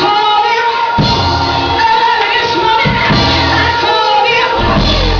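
Live gospel music: singing over a band, with low bass notes about once a second.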